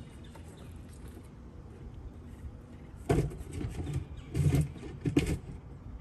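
Three loud, short knocks or clunks, the first about three seconds in and the others over the next two seconds, over a low steady rumble.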